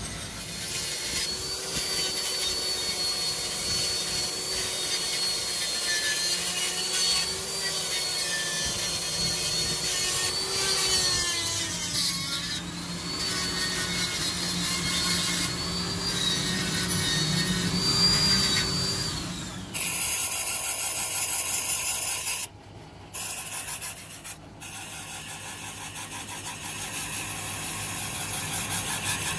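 Electric die grinder with a small abrasive wheel grinding down flame-spray weld on a cast-iron transmission housing, its motor whine sagging in pitch as the wheel bites and recovering as it eases off. About two-thirds through, the sound changes abruptly to a harsher, hissier grinding, broken twice by brief drop-outs.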